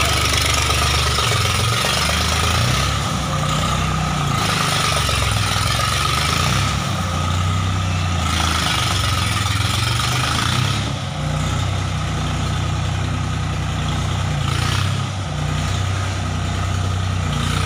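Ford 3600 tractor's three-cylinder engine running steadily as the tractor drives off, with small rises and falls in engine speed.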